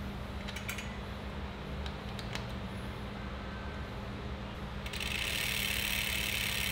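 A few light metallic clicks from hands working the bike's rear disc brake caliper, then from about five seconds in a sudden steady high buzz of the rear wheel spinning, its freehub ratchet clicking as it coasts.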